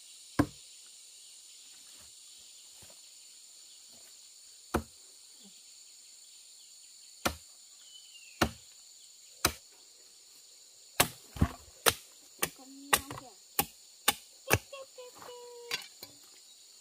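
Sharp hand-tool strikes. At first they are single and several seconds apart, then come in a quicker run of about two a second. A steady high drone of insects runs underneath.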